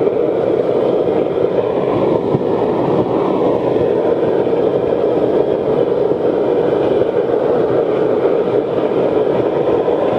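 Forced-air waste oil burner firing into a furnace: blower and flame running steadily as one even rushing noise, unbroken throughout.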